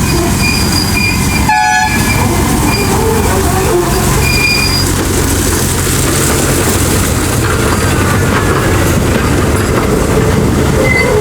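Train running on rails: a steady loud rumble of wheels on track with clickety-clack, and a few short high-pitched squeals in the first half.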